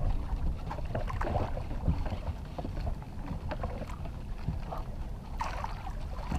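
Wind rumbling on the microphone aboard a small fishing boat at sea, with scattered small knocks and clicks of gear and hull.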